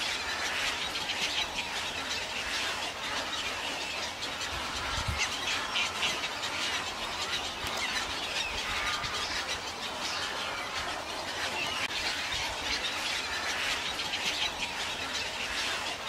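A flock of birds chirping in a tree: many short calls overlapping in a dense, continuous chorus.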